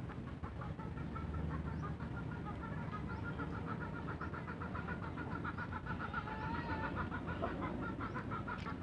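Chickens clucking, a steady run of short calls.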